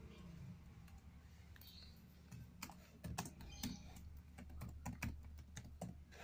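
Typing on a laptop keyboard: irregular key clicks, getting busier about two and a half seconds in, over a low steady hum.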